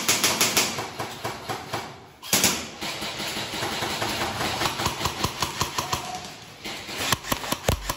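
Airsoft rifles firing rapid bursts, a fast rattle of shots echoing off the rock walls of a mine tunnel. The fire runs nearly continuous through the middle, and a few separate shots come near the end.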